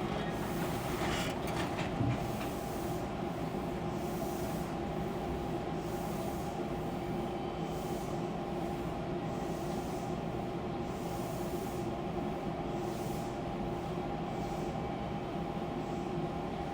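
Fukuoka City Subway 2000 series car standing at a station: the steady hum of its onboard equipment, with a few constant tones and a couple of faint clicks one to two seconds in.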